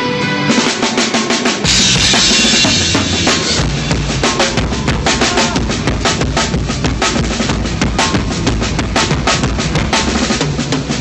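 Live band playing with the drum kit loudest: a steady kick-and-snare beat starts about half a second in. A cymbal crash and deep bass join about two seconds in.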